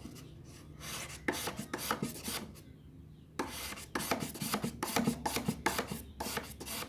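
Scissor blade being rubbed in quick, rasping strokes across fine 1000-grit sandpaper to sharpen a dull edge. The strokes run for a second and a half, pause briefly, then start again.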